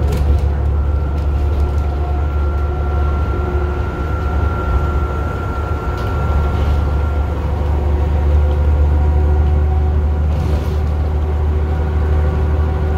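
Cabin sound of a 2019 Grande West Vicinity bus under way, its Cummins ISB 6.7-litre diesel and ZF EcoLife automatic transmission giving a deep steady rumble with a thin high whine on top. The whine fades out about seven seconds in.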